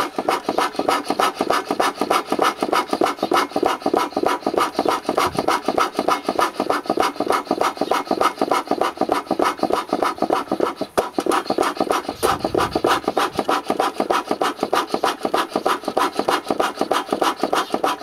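A beekeeper's smoker bellows pumped fast as a blower, puffing air into red-hot charcoal inside a hollowed log: a rapid, even rhythm of puffs, about five or six a second. The air is fanning the coals to drive the heat through the stump's core.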